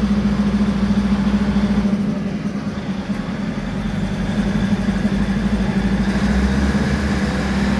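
Diesel railcar engines idling while the train stands at the platform: a steady, even hum with a deep rumble underneath.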